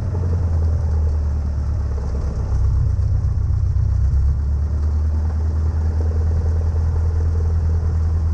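Cessna 152's four-cylinder Lycoming engine running steadily at low taxi power after landing, a deep even hum heard from inside the cabin. Its pitch drops slightly right at the start.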